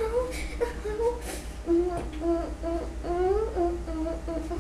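A young girl humming a wordless tune, her pitch stepping up and down.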